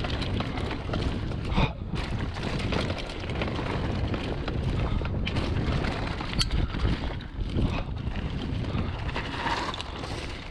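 Mountain bike ridden fast down a dirt trail: knobby tyres rolling over dirt and dry leaves, with wind rushing over the microphone. A few sharp knocks and rattles from the bike come over bumps, the loudest about one and a half seconds in and again around six to eight seconds in.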